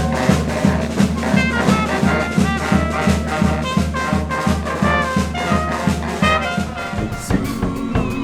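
A brass band playing: trumpets and trombones carry the tune over a bass line that pulses about three times a second, and the bass pattern changes about seven seconds in.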